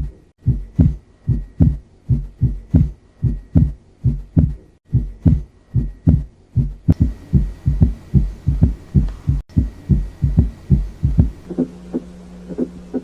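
Recorded heart sounds with S4 heard before S1 and S3 after S2: low thuds repeating in quick groups, a gallop rhythm of the kind heard with stiff ventricles. Near the end the thuds give way to fainter, sharper clicks over a steady hum.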